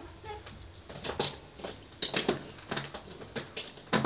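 A pet scratching at a chair, a run of short, irregular scrapes and clicks.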